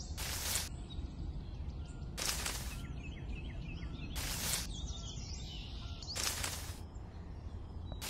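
Short hissing bursts, each about half a second long, repeating about every two seconds over a low steady rumble, with faint chirps between them.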